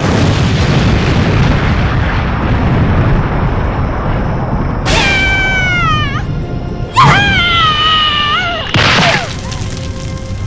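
An explosion sound effect bursts in suddenly and rumbles on for about five seconds, followed by two high-pitched screams that fall in pitch, with music underneath.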